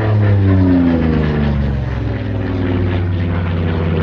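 Yak-3U's 14-cylinder Pratt & Whitney R-2000 radial engine in a low flypast: its pitch drops over the first two seconds as the aircraft goes past, then it runs on at a steady drone.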